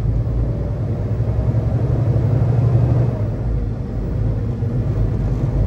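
Semi-truck diesel engine running under way, heard from inside the cab as the truck drives across a lot: a steady low rumble that swells a little around the middle.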